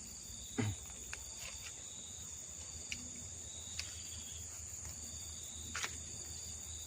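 Insects, crickets or the like, chirring in a steady high-pitched chorus. A few short knocks or taps come through it, the loudest about half a second in.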